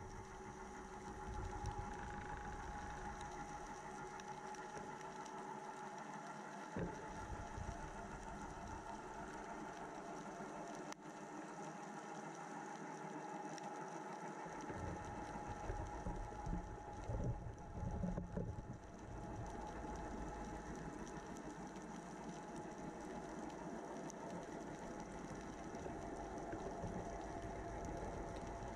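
Steady hum of a distant boat motor heard underwater, holding a few steady tones over a hiss, with a few low thumps about seven seconds in and again between sixteen and eighteen seconds.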